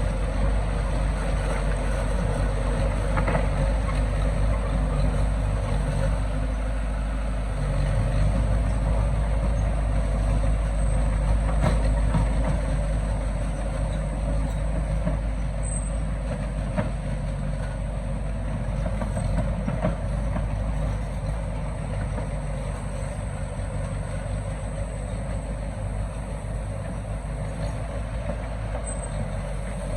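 Heavy diesel earth-moving machinery running steadily with a low engine drone. The drone swells about eight seconds in and eases off again in the second half.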